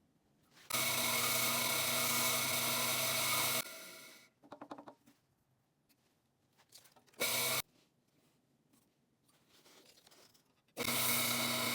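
Small electric power tool motor running in bursts while polishing a wooden ball: it runs steadily for about three seconds, winds down with some rubbing noise, gives a brief burst in the middle, and starts up again near the end.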